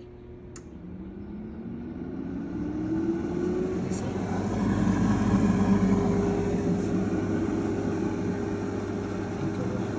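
Cosori air fryer's fan spinning up after being switched on: a whir that rises in pitch over the first few seconds and grows louder, then runs steadily.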